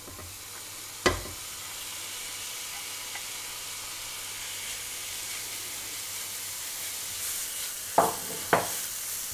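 Grated onion sizzling in hot olive oil in a frying pan, a steady hiss. A sharp knock about a second in and two more near the end as the spatula and plate strike the pan while the onion is scraped in and stirred.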